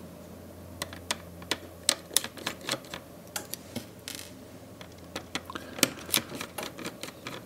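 Irregular small clicks and taps of a precision screwdriver working the tiny screws that hold a tablet's camera assembly, with a brief scrape about four seconds in.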